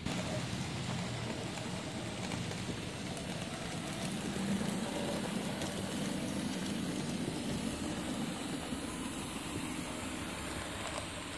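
N-scale model train, a V 100 diesel locomotive model pulling passenger coaches, running along the layout track with a steady whirring rumble from its motor and wheels on the rails.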